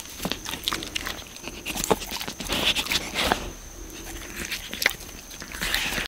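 A deer licking and chewing cat food and bird seed off the porch right at the microphone: an irregular run of short smacking and clicking sounds.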